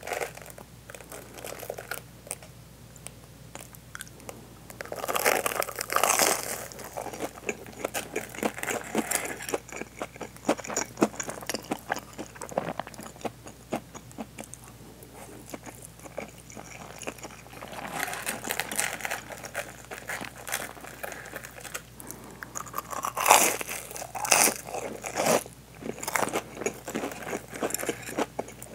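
Close-miked crunching and chewing of deep-fried hanpen fish cake stuffed with cheese, the crisp fried coating crackling between the teeth, with mouthfuls of rice between bites. The crunching is loudest about five seconds in, around eighteen seconds and again around twenty-three to twenty-five seconds.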